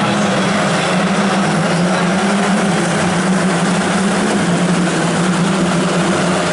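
A full field of Formula 4 single-seaters, Tatuus-Abarth 1.4-litre turbo four-cylinders, accelerating away together from the race start, their engines merging into one dense, steady drone.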